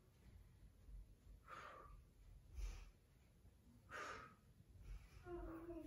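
A woman breathing hard through a single-leg deadlift: three faint, short, sharp breaths about a second or so apart. Near the end comes a brief voiced sound.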